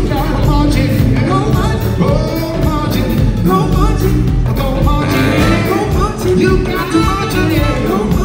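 Live funk band playing with a steady drum beat, electric bass and electric guitar, with singers' voices over the top.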